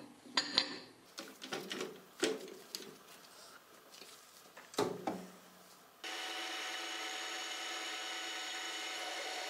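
Metal clanks and knocks as a steel disc is set and clamped in a metal lathe's chuck. About six seconds in, the lathe starts and runs with a steady hum of many tones.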